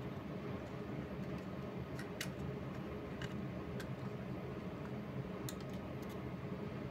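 A few faint, scattered plastic clicks and creaks from an Attack Shark X6 computer mouse being pressed and handled, over a steady low hum.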